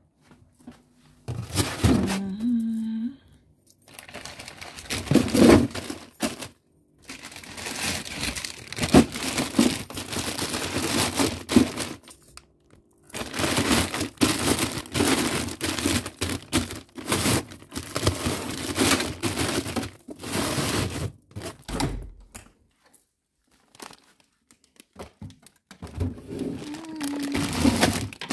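Plastic bags and food packaging rustling and crinkling as groceries are handled, with knocks now and then. The sound comes in several separate stretches that start and stop abruptly.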